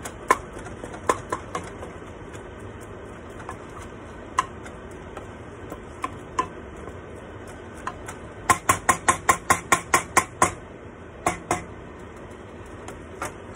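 Wooden spatula stirring ground meat in a stainless steel pot, knocking against the sides now and then, with a quick run of about a dozen sharp taps a little past the middle.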